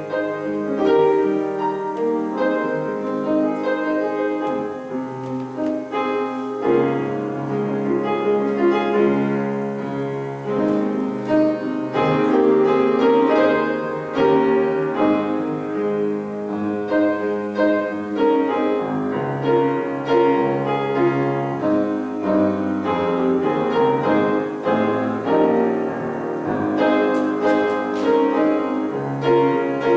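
Solo grand piano playing an instrumental piece of held chords and moving notes, at an even volume.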